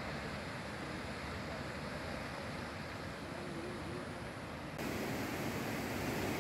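Steady rushing of the Seti River's muddy floodwater in spate, mixed with wind. About five seconds in the rush turns louder and fuller.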